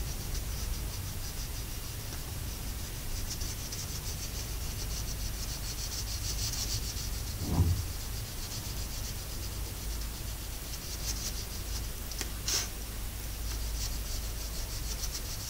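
Wax crayon scratching back and forth on paper in quick, rhythmic strokes, colouring in a background. A single thump about halfway through and a sharp tap later on.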